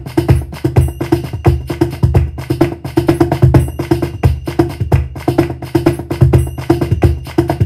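Roland HandSonic electronic hand-percussion pad played by hand with a cajon sound: a fast flamenco bulerías rhythm in 12/8, dense strokes mixing deep bass hits with sharper slaps.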